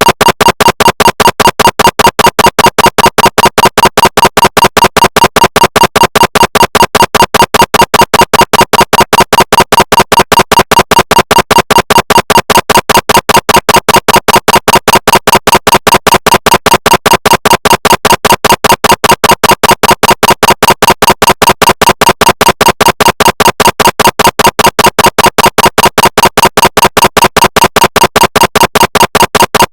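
Recreated GE SIGNA Victor MRI scanner sound: a loud, rapid train of evenly spaced pulses at a steady pitch, imitating the gradient coils knocking during a scan sequence. It starts abruptly out of silence and keeps an unchanging rhythm.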